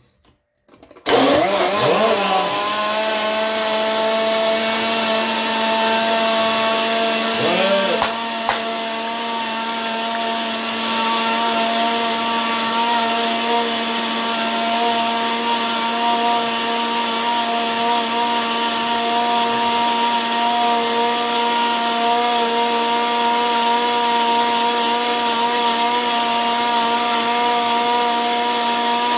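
Countertop blender motor switching on about a second in, spinning up in pitch and then running steadily at full speed as it purées strawberries with casein powder and almond milk. Around eight seconds in its speed briefly dips, with a click, and recovers.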